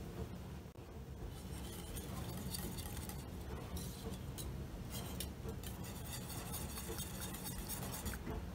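Wire whisk stirring soup in a stainless steel pot, its wires making faint, scattered clinks and scrapes against the metal.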